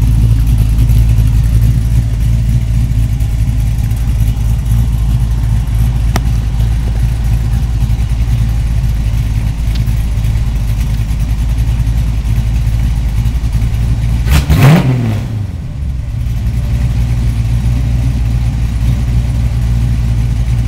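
Cammed small-block Chevy 350 V8 idling through a 3-inch dual exhaust with X-pipe and headers. About fourteen seconds in, the throttle is blipped once: the engine revs up quickly and drops back to idle.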